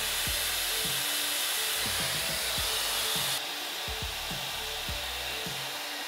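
Shark SpeedStyle hair dryer with a brush attachment blowing, a steady rush of air that drops a little just past halfway. Background music with a steady beat runs under it.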